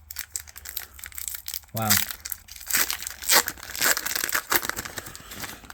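Foil booster-pack wrapper being torn open and crinkled by hand: a run of crackling rips and crinkles.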